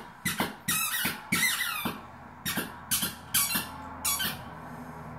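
A squeaky dog toy being chewed by a Siberian husky puppy: a quick run of short, high-pitched squeaks, about two a second, that stops a little after four seconds.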